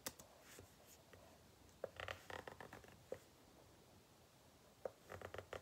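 Near silence with faint handling noise: a few soft taps and rustles in two short clusters, about two seconds in and again near the end.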